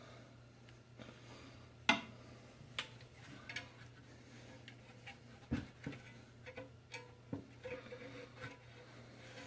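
Scattered light clicks and taps of hand work at a snowmobile's exhaust springs, as someone tries to free a spring hidden down inside. The sharpest clicks come about two seconds in and about five and a half seconds in, over a faint steady hum.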